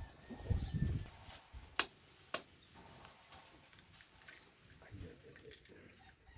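Kitchen work with bowl and utensils: two sharp clicks about half a second apart, a little under two seconds in, and a brief low rumble about half a second in.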